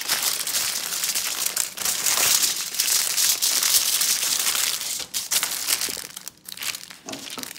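Aluminium foil crinkling and crumpling as it is folded and wrapped around a sandwich by hand: dense crackling for about five seconds, then sparser near the end.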